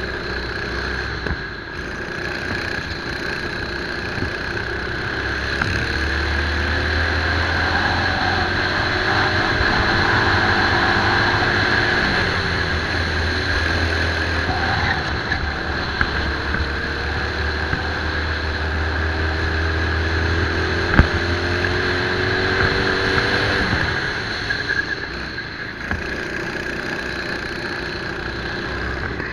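Racing kart engine heard onboard at speed, its pitch climbing steadily twice as the kart accelerates down the straights and dropping back as it slows for a corner. A single sharp knock comes about two-thirds of the way through.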